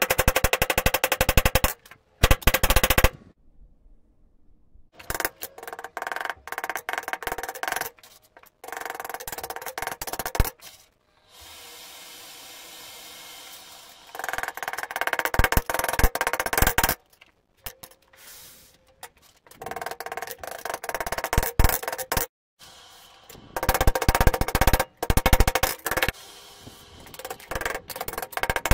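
Rapid hand-hammer blows on red-hot steel on an anvil, in bursts of fast hammering broken by short pauses, with the anvil ringing under the strikes.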